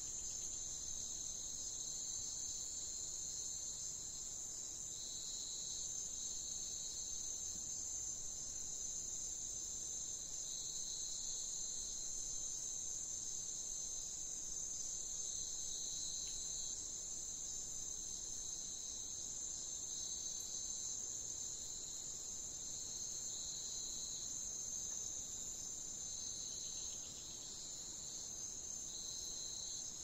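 Steady insect chorus with a continuous high trill, and a second, lower trill coming and going every second or so.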